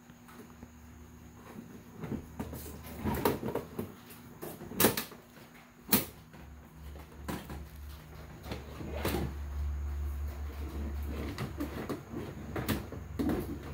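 A skeleton prop and hearse prop being handled and shifted into place: a scattered series of sharp knocks and clacks, with a low rumble for a few seconds past the middle.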